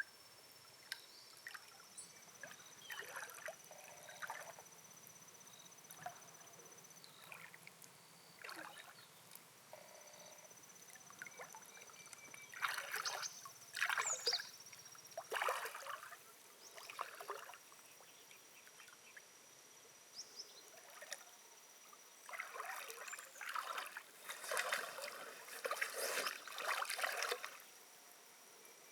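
Water splashing and trickling in short, irregular bursts, busiest around the middle and again near the end.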